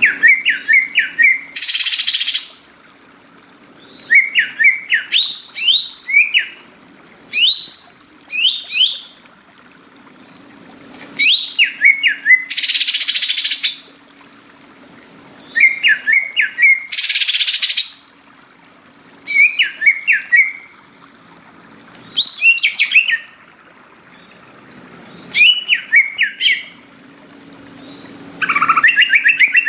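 Greater green leafbird (cucak ijo) singing: short phrases of quick whistled chirps every few seconds, some ending in a harsh rasping burst.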